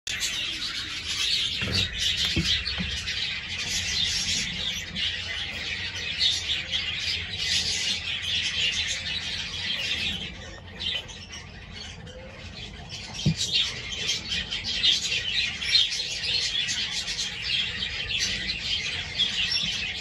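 A flock of cockatiels and other aviary birds chirping and calling continuously, many voices at once. It eases off briefly about halfway, then picks up again.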